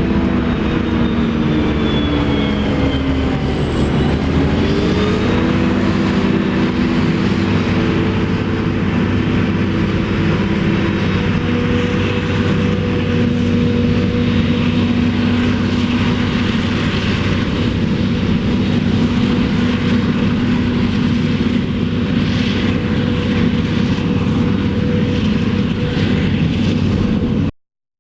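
Heavy diesel farm machinery running steadily under a high whine. The engine note and the whine dip briefly about four seconds in and then recover, as under a passing load. The sound cuts off abruptly near the end.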